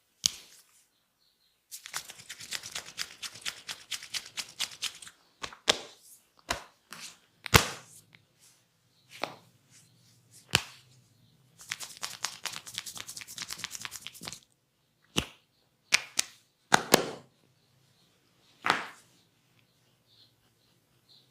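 Hands working on a body during a barber's massage: two runs of rapid, closely spaced strikes lasting a few seconds each, with single sharp slaps or cracks between them.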